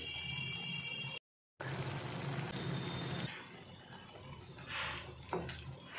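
Wet, hissing sound of liquid in a cooking pan. It breaks off for a moment about a second in and runs quieter from about three seconds in.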